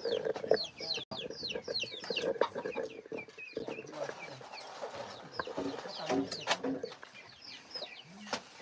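Chickens clucking and cheeping, with many quick, high, falling cheeps. A few sharp knocks and clatters come from bamboo poles being handled.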